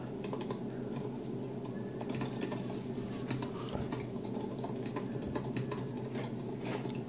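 Small, irregular clicks and taps from trading cards being handled close to the microphone, over a steady low hum.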